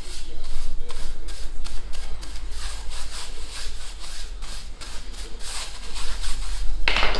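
A brush scrubbing primer onto a gypsum tile in quick repeated strokes, a few a second, with a louder stroke near the end.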